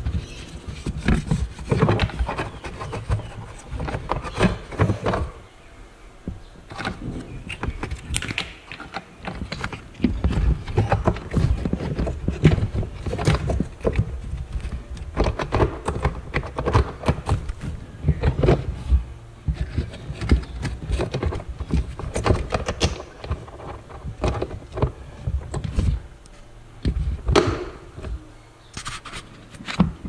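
Plastic parts of a dishwasher's float micro-switch assembly being handled and fitted back into the base by hand: a string of irregular plastic knocks, clicks and rattles, with brief lulls about six seconds in and near the end.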